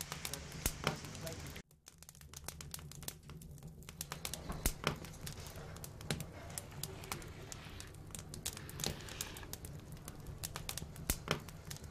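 Wood fire crackling, with irregular sharp pops from the burning logs over a low steady rumble; the sound drops out briefly a little under two seconds in.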